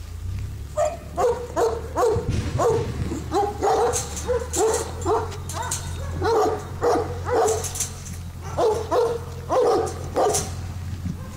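A dog barking repeatedly, about two to three barks a second, with a short pause in the middle.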